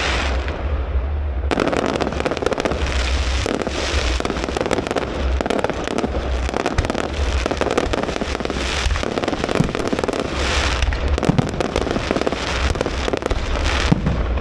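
Fireworks display: a dense, continuous crackling and popping of many shells bursting at once.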